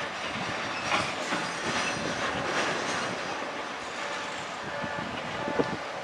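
Steady mechanical rumbling and hiss, with a few faint metallic clicks scattered through it.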